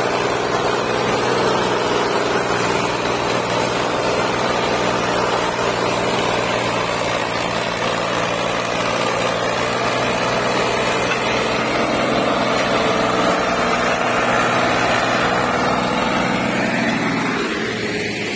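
An Al-Ghazi tractor's diesel engine runs steadily under load as it hauls a heavily loaded sugarcane trolley past at close range. The sound eases off slightly near the end as the tractor moves away.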